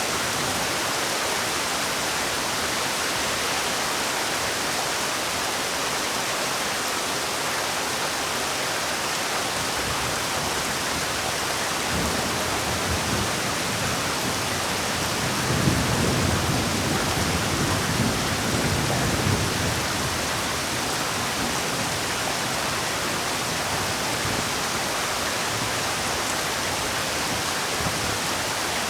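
Steady rainfall, an even hiss. About halfway through, a low rumble swells for a few seconds.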